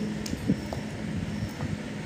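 A steady low mechanical hum, with a few soft knocks and handling sounds.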